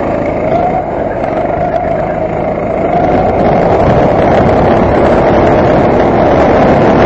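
Go-kart engine running at racing pace, heard close up from the kart itself. Its note wavers and dips through a corner in the first few seconds, then rises and holds higher and louder as the kart accelerates down the straight.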